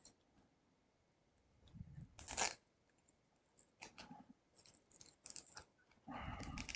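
Light handling of a laptop's LCD panel and its parts: a short crinkly rustle about two seconds in, a few soft clicks, and a longer scraping rustle starting near the end.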